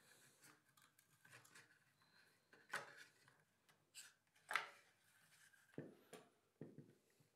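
Faint clicks and taps of small plastic micro servos being pressed into a laser-cut wooden servo tray, with a screwdriver working at a servo's mounting screw near the end. There are about six short knocks, the loudest about four and a half seconds in.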